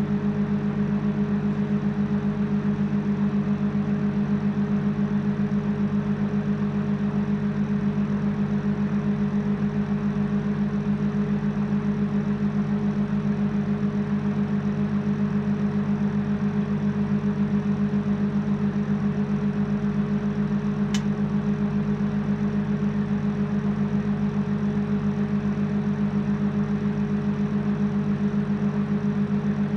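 Microwave oven running with a steady, even hum, with one faint click about two-thirds of the way through.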